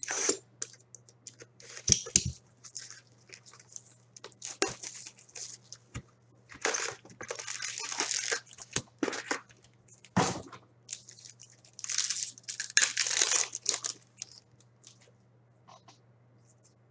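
Paper-and-foil wrapping of 2015-16 Ice hockey card packs being torn open and crinkled by hand, in irregular bursts of tearing and rustling. The two longest, loudest stretches come a little before the middle and about three-quarters of the way through.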